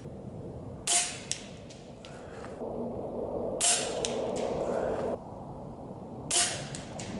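Snowpeak M60 PCP air rifle firing three shots about two and a half seconds apart, each a sharp crack followed about half a second later by a fainter click.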